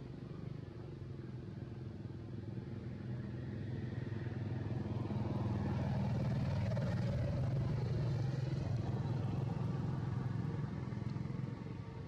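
A motor vehicle's engine running, growing louder over several seconds and then dropping off sharply near the end.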